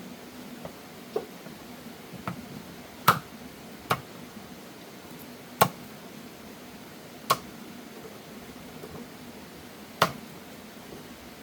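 Five loud, sharp knocks, spaced irregularly one to three seconds apart, with a couple of fainter taps between them and a faint steady hum behind.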